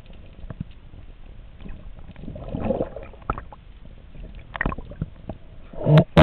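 Underwater water noise picked up through a submerged camera housing: faint scattered clicks and gurgling, a swell of water noise about two and a half seconds in, and a loud short rush of water noise near the end as the camera nears the surface.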